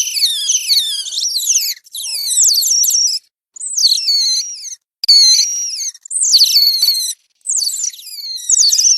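Giant otters calling: high, squealing calls that fall in pitch, several overlapping at once, in about six bouts of a second or so each with brief breaks between them.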